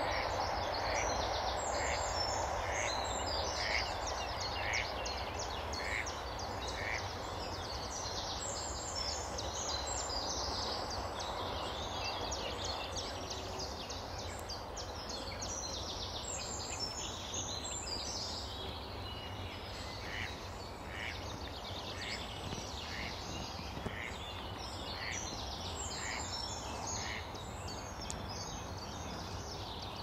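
Outdoor chorus of small songbirds, many overlapping chirps and trills, with a bird repeating one short note about once a second in two runs, early on and again later. A low steady background rumble sits underneath and is stronger in the first seconds.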